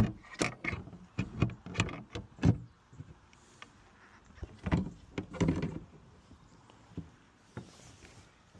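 Scattered clicks and knocks of a locksmith's long-reach lockout tool working against the inside of a car door and cabin, thickest in the first couple of seconds and again about five seconds in.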